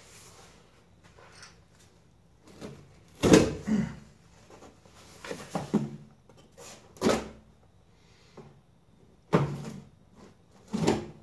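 Cardboard shipping box being handled and worked open: a run of about seven sharp cardboard knocks and scrapes, the loudest a little over three seconds in.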